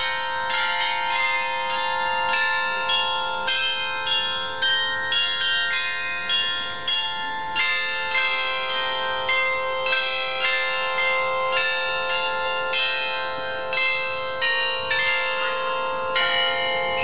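An open-air bell glockenspiel (carillon) playing a tune: small tuned bells hung on a frame are struck one after another, about two notes a second, each note ringing on under the next.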